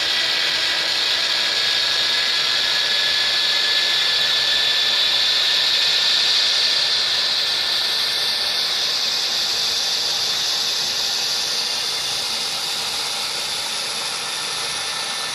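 HO-scale MTH C44-9W (Dash 9) model locomotive's sound decoder playing diesel locomotive sound through its two small TCS speakers: a loud, steady hiss and whine with little bass, easing off slightly near the end.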